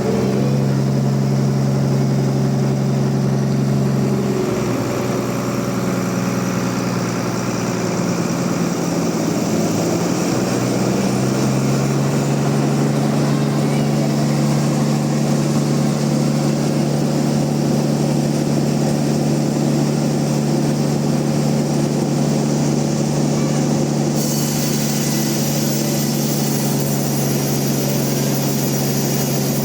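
Log bandsaw mill running with a steady low machine hum. The hum sags and wavers for several seconds early on, then holds steady, and a brighter hiss joins near the end.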